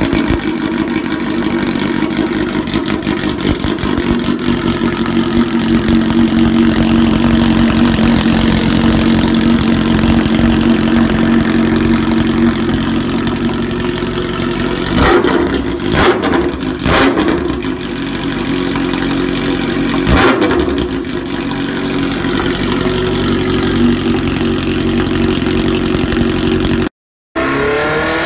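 Kawasaki Ninja H2's supercharged inline-four engine idling through an Austin Racing full Inconel exhaust, with several quick throttle blips about halfway through. The sound cuts out briefly near the end.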